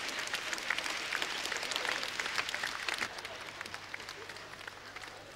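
Audience applauding, the clapping thinning out and fading over the last two seconds or so.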